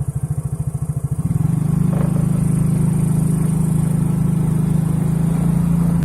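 A low engine-like drone that pulses rapidly for about the first second and a half, then runs steady, and cuts off abruptly at the end.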